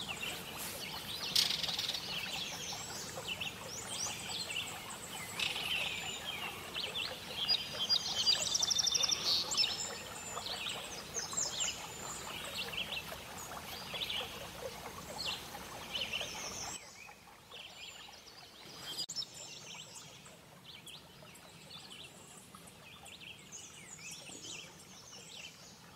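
Woodland songbirds chirping and singing, many short overlapping calls with a rapid trill about eight seconds in. About two-thirds of the way through it drops suddenly to fainter, sparser birdsong.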